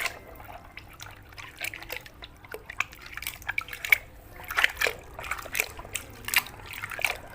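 Water sloshing, splashing and dripping in irregular strokes as a toy is swished and washed in a basin of muddy water.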